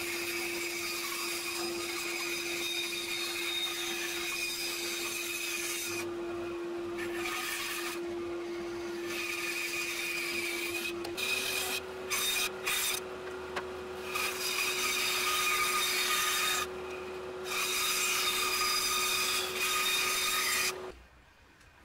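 Bandsaw cutting a curve through a thick wood blank: a steady whine of the running saw under the rasping hiss of the blade in the wood, broken by several short gaps. The whine steps slightly higher about eleven seconds in, and everything stops about a second before the end.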